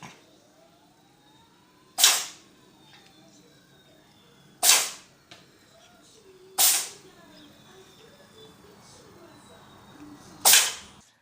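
Cat sneezing four times, each a sharp, sudden burst that dies away within half a second; the first three come about two seconds apart, the last after a longer pause.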